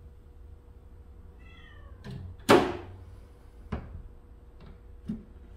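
Wooden cabinet doors with lattice panels being shut by hand: a brief squeak falling in pitch, then one loud wooden clap as a door closes against the cabinet, followed by two lighter knocks.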